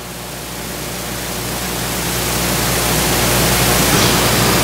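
Steady hiss with a low electrical hum, swelling gradually louder. This is typical of a recorder's automatic gain turning up background noise when nobody speaks.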